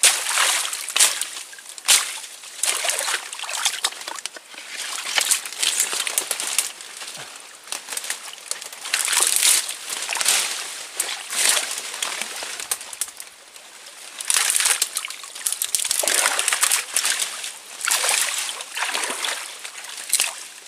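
Water sloshing and splashing in uneven surges every second or so, as a person wades through a knee-deep river.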